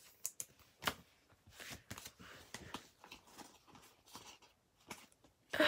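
Baseball trading cards being handled and flipped through by hand: scattered soft clicks and rustles of card stock sliding against card stock, with a louder rustle at the very end.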